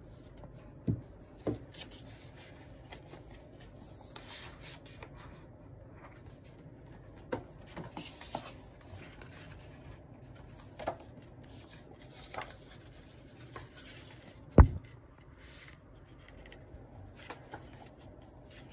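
Cardboard album packaging and photobook pages being handled: paper sliding and rustling, with several light taps and one louder thump about three-quarters of the way through.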